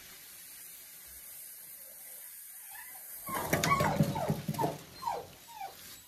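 Excited dog whining in short, high, falling cries, repeated about twice a second from about three seconds in, over the rustle and scrape of a cardboard appliance box being lifted off.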